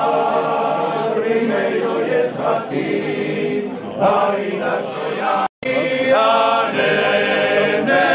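A men's choir singing a cappella in close harmony, holding long chords with several voices together. The sound cuts out completely for a split second about five and a half seconds in, then the singing carries on.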